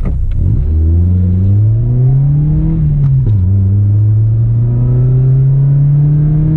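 Toyota Starlet's 1.3-litre 4E-FE four-cylinder engine, heard from inside the cabin, rising in pitch under acceleration. Just after three seconds in, a short click and a sudden drop in pitch mark an upshift on the five-speed manual gearbox, after which the revs climb slowly again.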